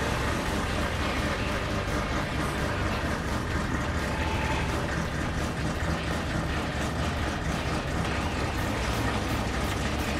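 Gasoline golf cart engine running steadily as the cart is driven.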